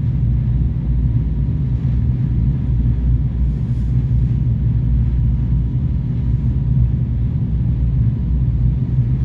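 Catamaran's engines running steadily underway, a constant low rumble heard from on board.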